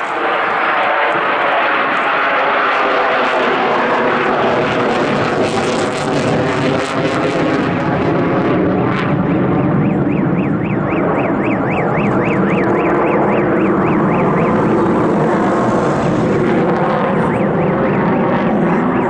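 MiG-29 fighter's two jet engines at high power with afterburners lit, a loud, steady rush of noise with slowly wavering pitch as the jet manoeuvres.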